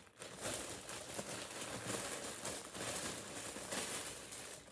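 Clear plastic bag crinkling continuously with many small crackles as a hand rummages inside it among skeins of yarn.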